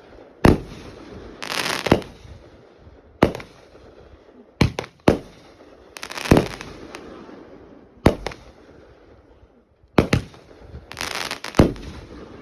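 Fireworks going off: a string of sharp bangs, some in quick pairs, with three longer crackling bursts that fade away between them.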